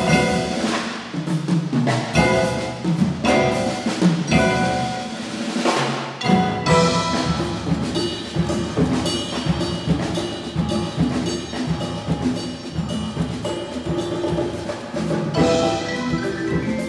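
Percussion ensemble of marimbas, vibraphone and timpani with piano playing: loud struck chords that ring out, about one a second, give way about six seconds in to a steady, driving run of fast mallet notes.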